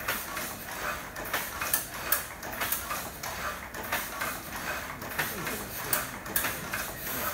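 Automatic platen letterpress press running, its mechanism clacking in a steady rhythm of a few strokes a second.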